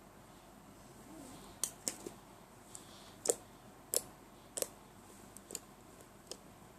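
Slime being poked and pressed, giving a run of sharp, irregular clicking pops, about ten of them, starting about a second and a half in.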